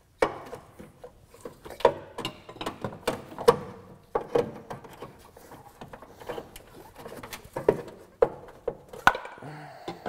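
Irregular plastic clicks and knocks as ignition coil packs are handled and pushed into the spark plug tubes on the front valve cover of a 3.5-litre Honda V6, with sharper knocks about three and a half seconds in and again near the end.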